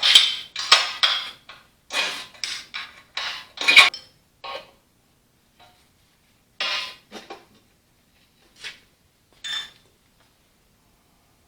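Wrenches and hand tools clinking and clanking on steel while the rear step of an Allis-Chalmers WD45 tractor is unbolted. A quick run of sharp metal clanks comes first, then a few scattered ones after a pause.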